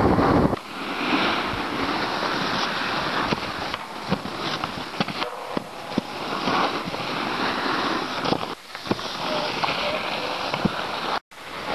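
Snowboard sliding and scraping over packed snow while riding a halfpipe, a continuous rough hiss with short sharp scrapes as the edges bite, mixed with wind noise on the microphone. The sound cuts out for an instant near the end.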